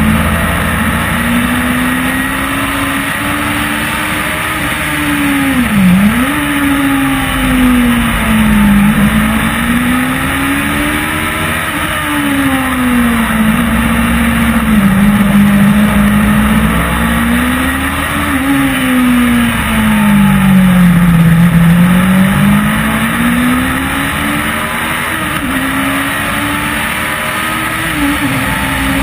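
Track car's engine heard from the car itself while lapping a circuit, its pitch rising and falling several times as it accelerates and lifts through corners, with a sudden dip about six seconds in. A steady rush of wind and road noise runs underneath.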